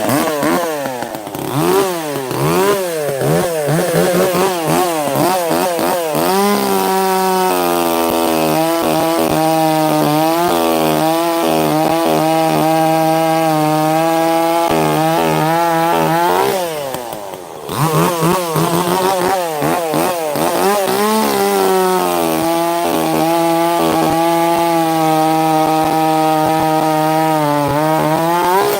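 Echo CS-590 two-stroke chainsaw revved up and down several times, then held at a steady high pitch while cutting through a log for about ten seconds. Around the middle it drops back briefly, revs again, and settles into a second steady cut that runs until near the end.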